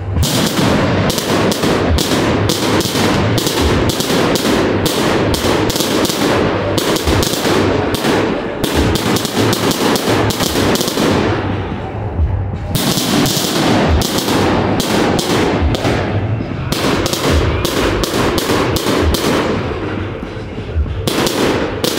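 Fireworks going off close by in rapid succession: a dense run of sharp bangs, several a second, easing briefly about twelve seconds in and again near the end.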